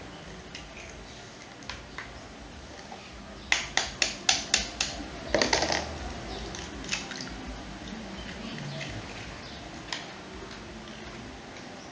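Egg being broken: a quick run of about five sharp taps of the shell against a bowl's rim, then a fuller crack as it breaks open, with a few fainter clicks around it.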